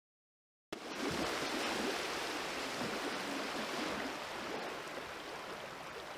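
Silence, then a steady rushing hiss, like running water, cuts in abruptly just under a second in and slowly fades: an ambient sound effect laid under an end-card logo.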